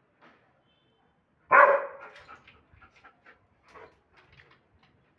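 German Shepherd barking: one loud, sharp bark about a second and a half in, followed by a few fainter, short sounds.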